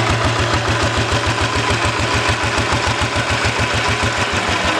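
Tobatta walking tractor's single-cylinder diesel engine running with a steady, rapid, even chug.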